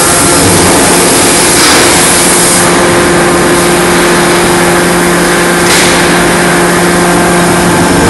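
Loud, steady forge-shop machinery noise: a constant low hum under a broad roar, with short bursts of hiss about two and six seconds in.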